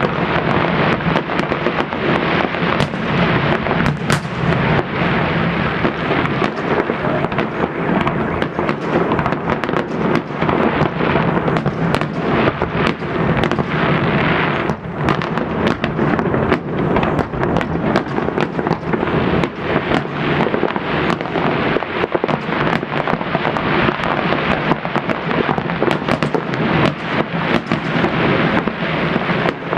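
Fireworks salute: many bangs in quick succession, overlapping into a continuous loud rumble, with a brief lull about fifteen seconds in.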